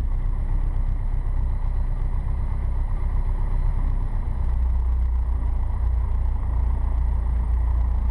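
Piper Cherokee's piston engine running steadily at low power, heard inside the cockpit as a deep drone. A faint steady high whine runs through it, which the instructor puts down to a newly fitted radio.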